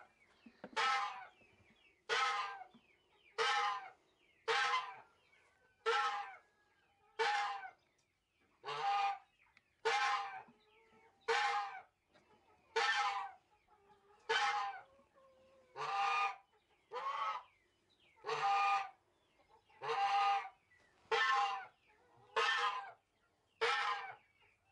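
Poultry calling in a steady rhythm: about twenty short squawks, each falling in pitch, one roughly every 1.2 seconds.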